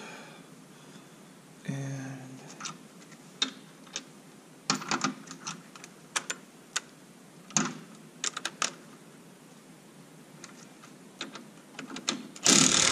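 Metal sockets and small parts clinking and knocking on a steel workbench in a scattered series of sharp clicks. Near the end a Ryobi cordless impact driver runs briefly on a bolt of the supercharger, the loudest sound.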